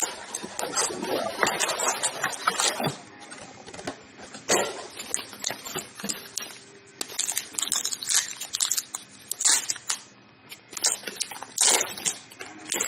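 Rustling and crinkling of a trading-card pack wrapper being torn open, along with the sound of cards being handled, in irregular crackling bursts.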